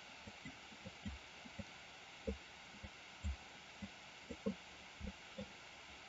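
Faint, irregular soft thumps of a computer mouse being clicked and moved on a desk, about three a second, over a steady faint hiss.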